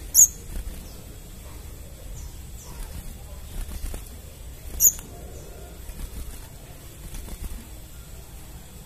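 Crimson sunbird calling: two sharp, very high-pitched notes about five seconds apart, with faint short falling chirps in between.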